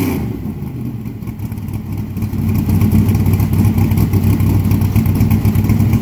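Old stock car's V8 engine running at a steady idle, its level pulsing unevenly. It gets louder about two and a half seconds in.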